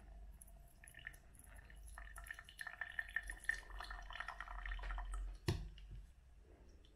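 Water poured in a thin stream from a gooseneck kettle onto a paper coffee filter, with a patter of small splashes as the paper soaks, from about a second in until about five seconds in. A single sharp knock comes about five and a half seconds in.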